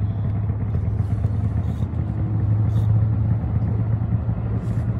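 Steady low engine rumble, swelling a little about halfway through.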